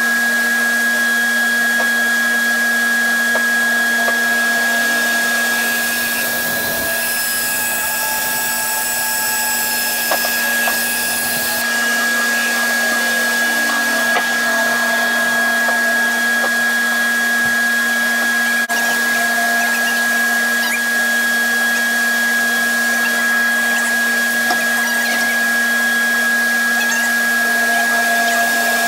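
Large bandsaw running steadily, a constant hum with a steady high whine, and a stretch of extra hiss about six seconds in.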